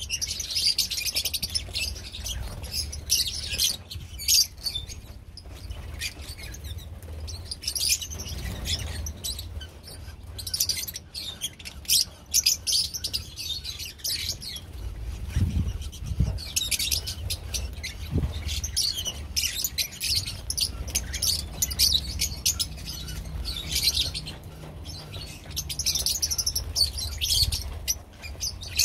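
A large flock of lovebirds chirping and chattering all at once, many shrill overlapping calls with a couple of brief lulls, over a low rumble.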